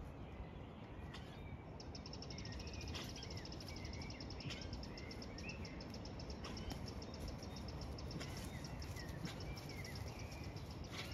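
Wild birds singing outdoors: a fast, high, evenly pulsed trill sets in about two seconds in and runs on, over scattered short chirps, with a low rumble of wind on the microphone underneath.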